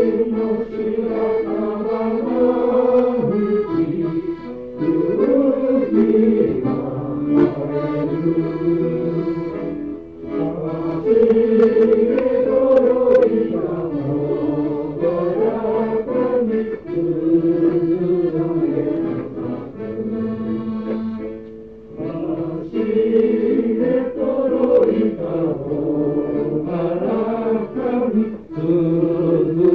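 Accordion playing a Russian folk song, with a group of people singing along.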